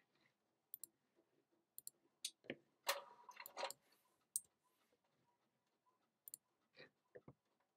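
Faint clicks of a computer mouse and keyboard: single sharp clicks, a quick cluster of clicks about three seconds in, then a few more near the end.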